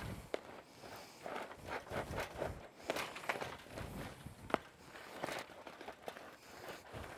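PVC decoy gloves rubbing and snagging on chicken wire, the wire rattling with irregular rustles and sharp clicks.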